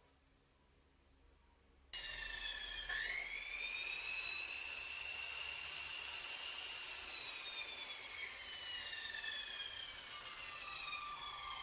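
Electric motor whining after a short silence. Its pitch dips and recovers about a second after it comes in, holds steady for a few seconds, then slowly falls as the motor winds down.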